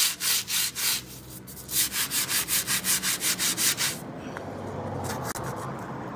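Stiff-bristled hand brush scrubbing a concrete floor with quick back-and-forth strokes, about four a second, working at clotted residue stuck to the concrete. There is a short break about a second in, and the scrubbing turns to a softer, steadier rubbing from about four seconds in.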